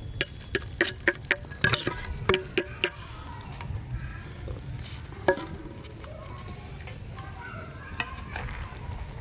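Metal utensils tapping and clinking sharply over an iron pan as masala spice powder is knocked out onto the noodles: about ten quick taps in the first three seconds, then single clinks about five and eight seconds in. A steady low rumble runs underneath.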